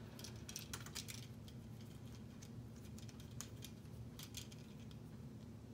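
Faint, scattered clicks and rattles of plastic K'nex pieces being handled and snapped together, over a steady low hum.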